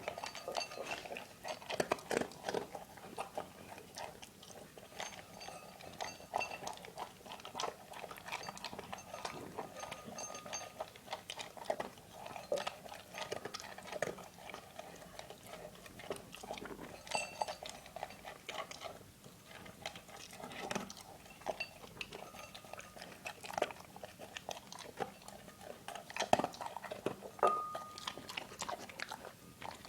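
A dog eating: crunching and chewing its food, with irregular crunches and clicks coming thick and fast throughout.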